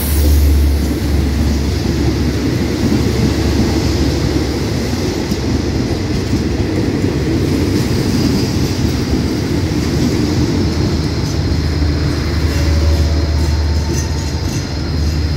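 Passenger train coaches rolling close past, a steady low rumble of wheels on rail.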